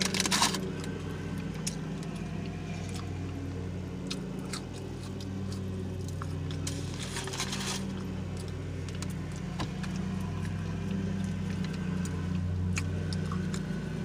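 Quiet chewing and mouth sounds from eating a sub sandwich, with scattered small clicks and a short rustle about seven seconds in, over a steady low hum in the car's cabin.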